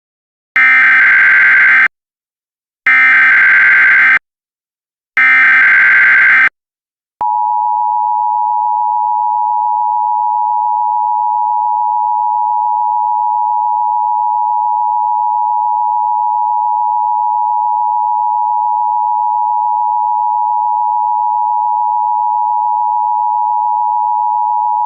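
Emergency Alert System signal: three short bursts of the SAME digital header, each a rasping data chirp lasting over a second, then about seven seconds in the steady two-tone EAS attention signal starts and holds unbroken. This is the coded header and alarm tone that announce an emergency broadcast.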